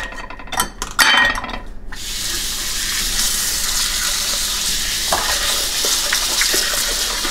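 A few clinks of dishes and utensils, then a kitchen tap turned on about two seconds in, with water running steadily into the sink.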